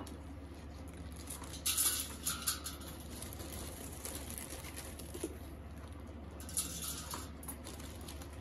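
Dry homemade vermicelli rustling as bunches are laid into a stainless-steel colander: brief crisp rustles around two seconds in and again near seven seconds, over a faint steady low hum.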